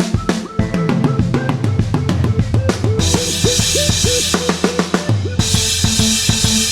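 Instrumental electronic music: a drum-kit beat with bass drum and snare over a deep bass line, with short synth notes that slide up in pitch. A bright hissing noise swell comes in about three seconds in and cuts off about two seconds later.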